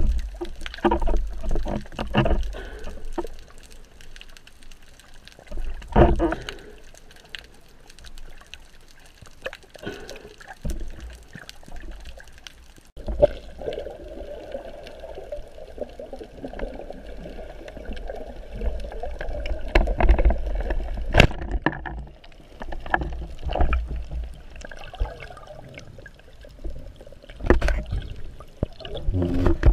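Underwater sound picked up by a spearfisherman's action camera: water moving and gurgling around the housing, with scattered clicks and knocks, and a steady drone through the middle.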